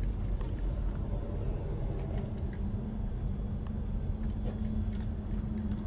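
Steady low rumble of a running vehicle engine, with a low hum that grows stronger about three seconds in, and a few light clicks.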